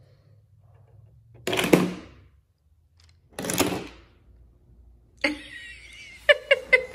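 Two short clatters of plastic LEGO bricks knocked down in a chain reaction, then children giggling near the end.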